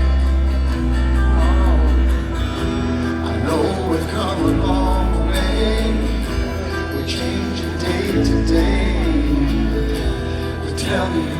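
Live band music played over a loud PA: an instrumental passage with guitar and heavy bass between sung lines of a song.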